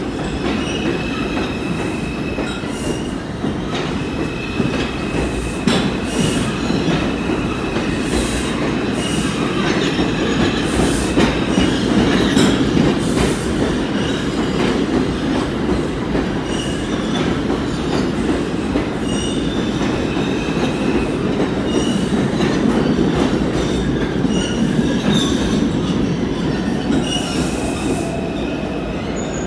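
New York City subway train passing along the tunnel track, a steady loud rumble with wheel squeal that comes and goes and clicking over the rail joints. It fades a little near the end as the train pulls away.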